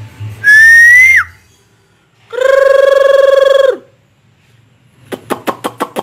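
Masked laughingthrush (poksay Hongkong) calling loudly. First comes a rising whistle that drops off sharply, then a steady lower note lasting about a second and a half. Near the end it gives a quick run of six short, sharp notes.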